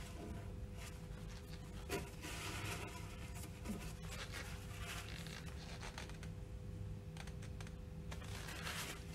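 Cloth rag rubbing and wiping over the pump shaft and the inside of the metal housing, in several short bouts of scraping, with a light knock about two seconds in. A faint steady hum sits underneath.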